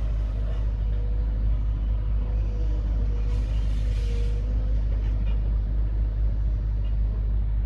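Demolition excavator running with a steady low engine rumble and a faint wavering hydraulic whine as it works its arm over the rubble. A short burst of hiss comes about three seconds in.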